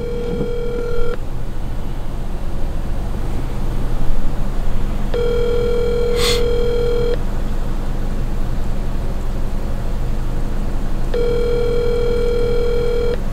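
Telephone ringback tone, the ringing a caller hears while the called phone rings unanswered: a steady tone about two seconds long that starts three times, six seconds apart, over a steady low hum.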